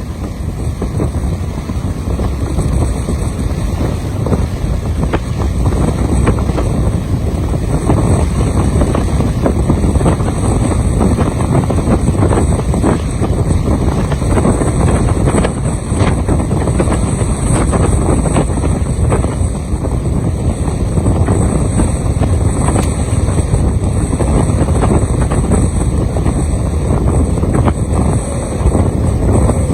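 Strong wind buffeting the microphone with a heavy, gusty low rumble, over the steady wash of a rough, choppy sea.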